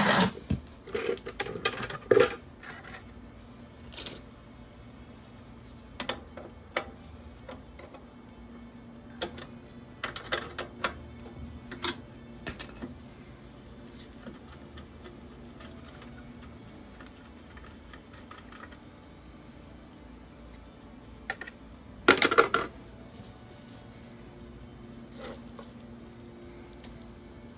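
Scattered metallic clinks and clicks of tools and fittings as a pump testing gauge manifold is hooked up to an oil burner's fuel pump. There is a louder clatter at the start and another about 22 seconds in, over a faint steady hum.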